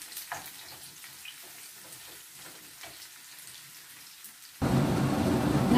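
Sliced onions frying in oil in a pan: a faint steady sizzle with scattered small crackles and taps of a wooden spatula. Near the end a much louder, dense sound cuts in suddenly.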